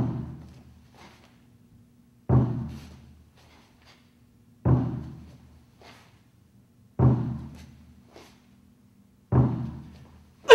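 A large drum struck at a steady, slow count, five single beats about two and a half seconds apart, each a deep thud that rings out and fades before the next. Each beat calls the next move of a martial-arts form performed by the count.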